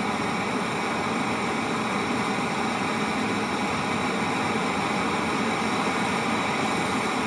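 Small acrylic-fuel hybrid rocket engine firing on a test stand: a steady, even hiss from the burning jet, holding constant throughout.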